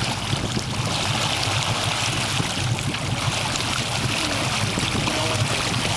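Steady rushing of river water around the boat, with a low rumble of wind on the microphone.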